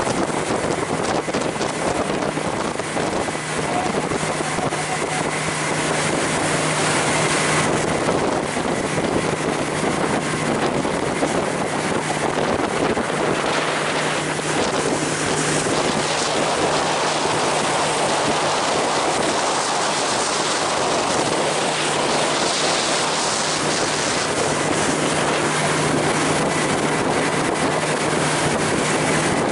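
Motorboat engine running at a steady speed with a constant low hum, under rushing water and wind buffeting the microphone.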